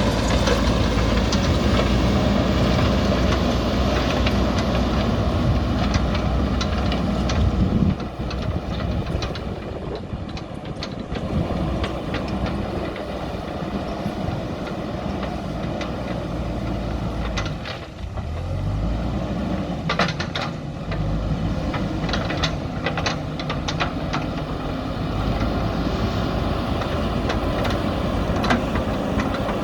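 JCB backhoe loader's diesel engine running steadily, dropping in level about eight seconds in and dipping briefly before picking up again near the middle, with a few sharp knocks around then.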